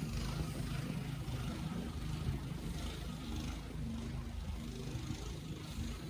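Steady city street ambience in a snowstorm: a continuous low rumble of wind and traffic.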